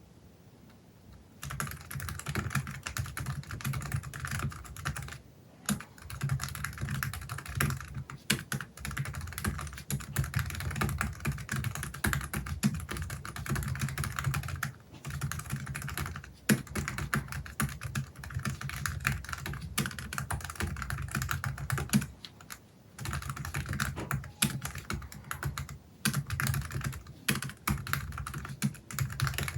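Fast, steady typing on a Logitech MX Keys Mini's low-profile scissor-switch keys with a silicone keyboard skin fitted over them. It starts after a second or so and pauses briefly a few times.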